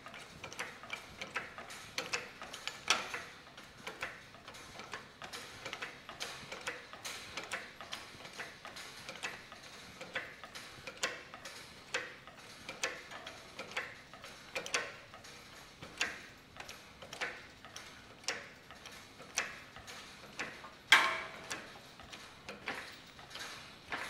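Hydraulic jack on a wire strain-test rig being pumped, giving a faint click about once a second as the high-tensile wire and its double-loop knot are loaded. A louder knock comes about 21 seconds in.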